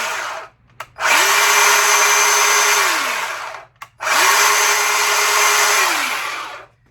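Bauer battery-powered chainsaw with a 10-inch bar, triggered in short bursts without cutting. The motor spins up to a steady whine and winds down each time the trigger is let go: the end of one burst, then two more of about two and a half seconds each.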